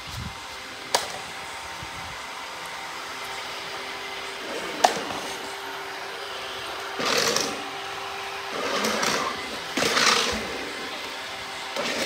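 iRobot robot floor cleaner running with a steady motor hum. Sharp clicks about a second in and near the middle, then several short hissing bursts in the second half.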